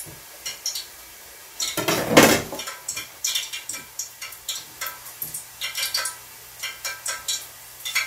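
Light irregular clicks and taps of a knife and bell pepper slices being handled on a wooden cutting board over a stainless-steel table, with one louder knock about two seconds in.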